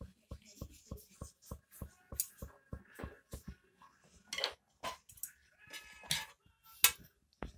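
A metal spatula clicks and scrapes against a flat griddle (tawa) a few times in the second half as a thin flatbread is lifted to be turned. The sharpest click comes near the end. Underneath runs a faint, fast, low ticking of about five beats a second.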